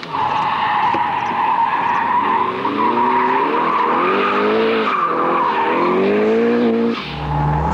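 Turbocharged Mercedes-Benz 190E sliding sideways on a race track, its tyres squealing steadily while the engine revs rise and fall with the throttle. About seven seconds in, the squeal fades and a low steady drone takes over.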